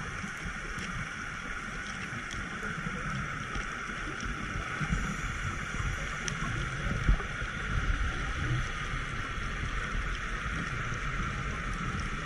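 Water sloshing around a boat, with low uneven rumbling under a steady hum.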